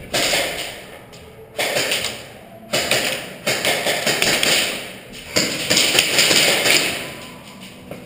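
Bursts of airsoft gun fire echoing in a concrete-block building: five rapid rattling strings of shots with sharp starts, the last and longest beginning about five seconds in.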